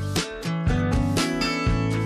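Background rock music with guitar and a steady beat, about two beats a second.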